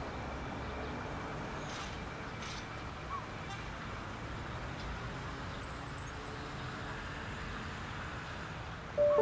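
Steady low rumble and hiss of distant traffic and port machinery, an even outdoor background noise. Music comes in suddenly right at the end.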